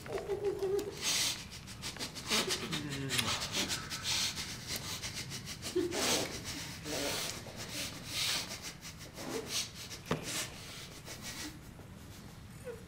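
Rubbing and scraping handling noises, with short muffled groans from a man gagged with tape.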